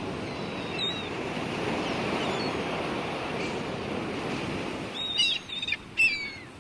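Sea surf washing in a steady rush, with gulls giving a few short calls that fall in pitch, a little after two-thirds of the way through.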